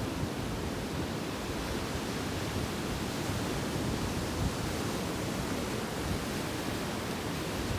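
Sea surf washing steadily onto a beach, an even rushing noise with a low rumble underneath.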